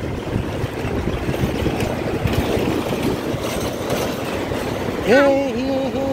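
Wind buffeting the phone's microphone with rumbling engine and road noise while riding a two-wheeler in traffic. About five seconds in, a man starts singing, holding wavering notes over the noise.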